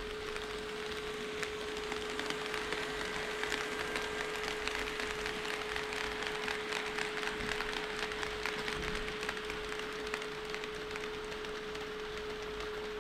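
HO scale model train running on sectional track: wheels clicking and rattling over the rail joints in a dense patter, busiest in the middle, over a steady hum.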